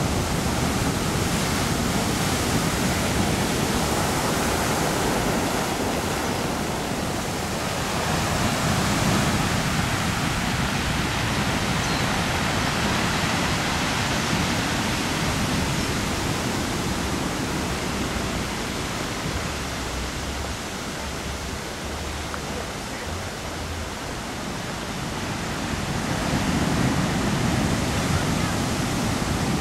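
Heavy ocean surf breaking over black lava rocks: a continuous rush of white water that swells as waves crash, with a quieter lull a little past the middle before a big wave breaks near the end.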